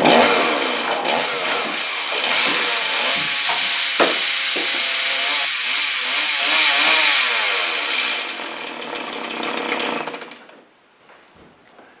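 Vacuum cleaner presented as a motor, running with an engine-like sound that is revved so its pitch rises and falls, with a sharp click about four seconds in; it cuts off about ten seconds in.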